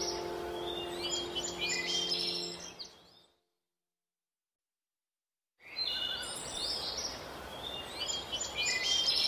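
Birds chirping over a soft sustained music pad that fades out, then a few seconds of complete silence, after which the chirping resumes without the music.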